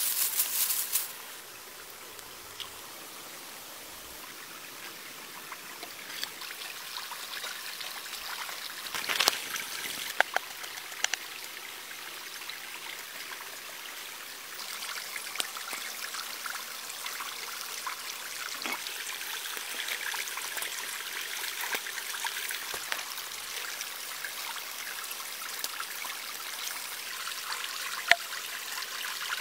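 Water trickling steadily, with a few sharp clicks and knocks on top. The loudest are a short burst at the very start and a cluster about nine to ten seconds in.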